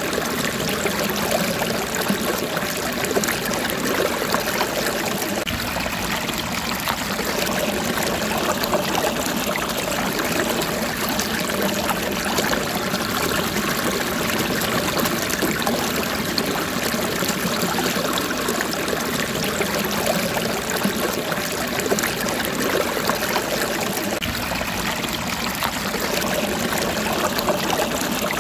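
Steady, even sound of running water, without a break.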